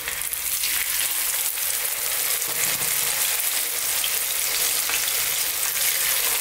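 Spice-coated pieces of black pomfret shallow-frying in hot sunflower oil in a frying pan: a steady sizzle full of fine crackles. The sizzle grows a little louder as more pieces are laid into the oil.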